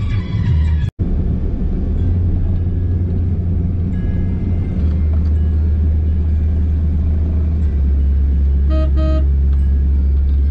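Low, steady road rumble of a car driving, heard from inside the cabin. Near the end a car horn gives two short beeps close together.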